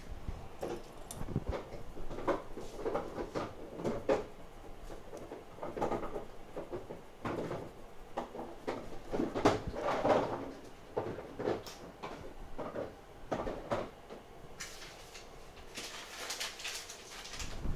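Irregular knocks and clatter of tools and parts being handled on a repair workbench, with a stretch of hiss near the end.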